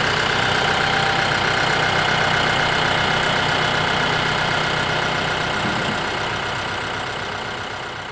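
74-horsepower RK 74 tractor's diesel engine running steadily at low speed, fading away over the last few seconds.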